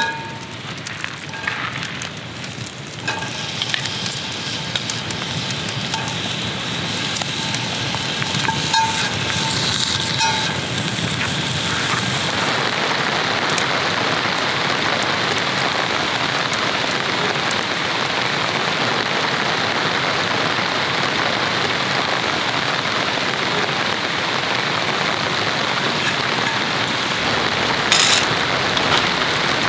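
Steady rain hissing on the shelter, with a wood fire crackling under a cast iron skillet; the hiss swells about twelve seconds in and holds. A sharp clink of a steel camp cup near the end.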